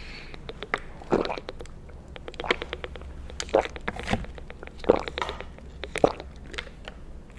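Close-miked gulping of water from a plastic bottle: a series of loud swallows roughly once a second, with small clicks and crackles between them.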